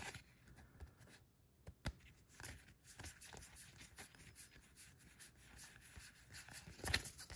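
Magic: The Gathering trading cards being flicked through and slid against each other in the hands: faint rustling and light clicks of card stock, with a sharper snap about two seconds in and a few more near the end.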